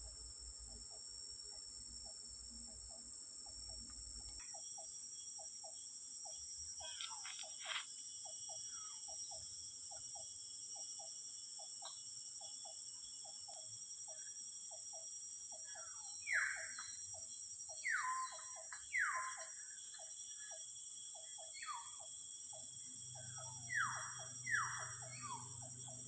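Rainforest insect chorus: a steady, high-pitched drone of crickets and other insects, with a rapid run of short, low ticks. In the second half an unseen forest animal gives about six loud falling whistled calls, two of them close together near the end.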